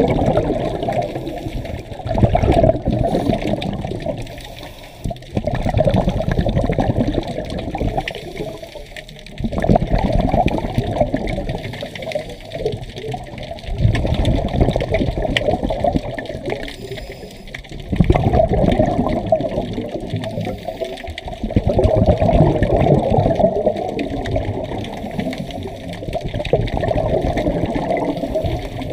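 Scuba diver breathing through a regulator, heard underwater: a muffled rush of exhaled bubbles comes every four seconds or so with each breath out, quieter between breaths.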